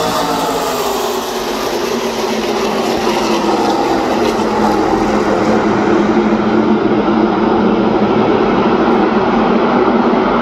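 NASCAR Truck Series V8 engines droning as a field of trucks runs past and around the track. The engine pitch falls as trucks go by near the start, then settles into a steady, many-engine drone.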